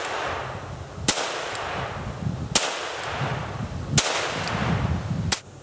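A Ruger Single-Six .22 LR revolver fired four times, roughly one shot every second and a half, each crack trailing off into echo, with a lighter click about half a second after most shots.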